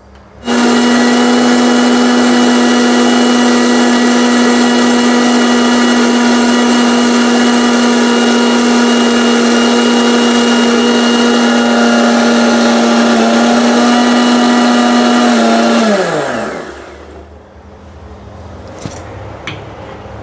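Electric mixer grinder blending mango pulp with milk, sugar and cold water into a milkshake: the motor starts about half a second in, runs at a steady pitch for about fifteen seconds, then is switched off and winds down with a falling pitch.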